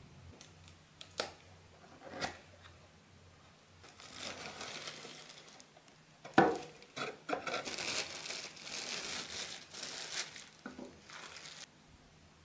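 Packaging crinkling and rustling in the hands as a clear plastic straw tumbler is taken out of its cardboard box. A few light clicks early on, and one sharp knock about six seconds in.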